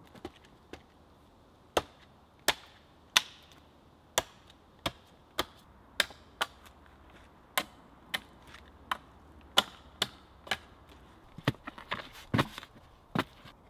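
Hatchet chopping into a wooden pole, a string of sharp, separate cracks roughly one every half second to second, coming faster near the end.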